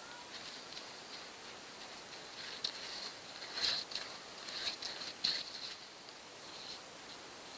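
Paintbrush strokes on a homemade boat hull as white polyurethane gloss is brushed on: several short scratchy swishes of the bristles, bunched in the middle.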